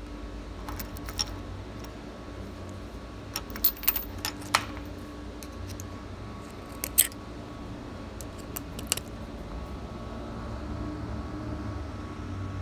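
Light metallic clicks and clinks of small hand tools, a tap in a tap wrench and a pointed pick, knocking against a steel shaft held in a vise. They come in short clusters about a second in, around four seconds, near seven seconds and near nine seconds, over a steady low shop hum.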